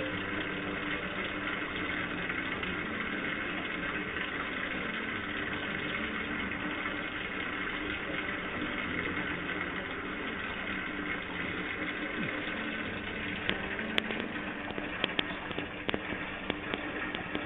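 A cruising yacht's inboard engine running steadily, under a hiss of water and wind. From about fourteen seconds in, sharp crackling clicks break in.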